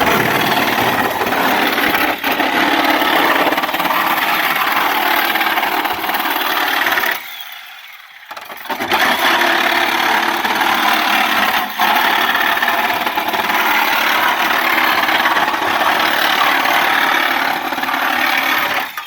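A power tool running under load, cutting steadily, with a pause of about a second and a half about seven seconds in before it starts again.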